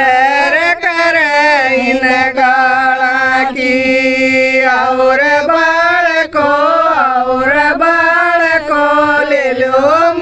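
Group of women singing a Haryanvi jakdi folk song together, drawing out long held notes that rise and fall.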